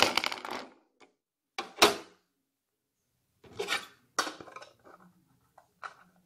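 Plastic brush pens and their clear plastic case clattering and rubbing as the pens are taken out: a scraping rustle that fades in the first second, a sharp clack about two seconds in, more clatter around four seconds in, then a few light clicks.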